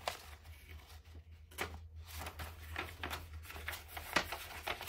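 Small packaging being handled and opened by hand: a series of short, irregular rustles and crinkles, with a sharper one about four seconds in.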